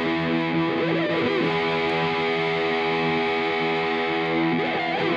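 Background music: a held chord with two brief sliding notes, about a second in and near the end, then a sudden cut-off leaving a short fading ring.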